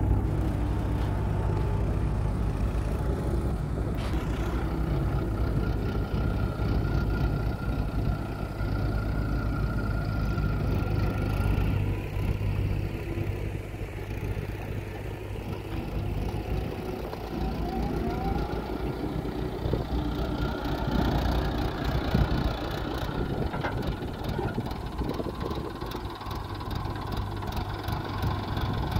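Mahindra tractor's diesel engine running steadily as it hauls a trolley loaded with soil.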